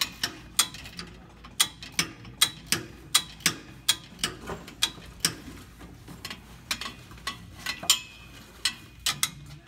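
Hand ratchet wrench clicking as it turns a bolt: irregular sharp clicks, about two or three a second, some in quick pairs.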